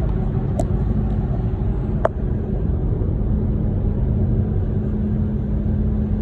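Volkswagen e-Golf with a steady low rumble and a constant hum: the unexplained noise its owner is recording. Two sharp clicks break through, the second, about two seconds in, the louder.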